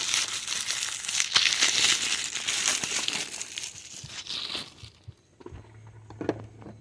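Plastic packaging crinkling and rustling as a new knock sensor is unwrapped by hand, for about five seconds, then quieter handling with a few small clicks. A low steady hum comes in near the end.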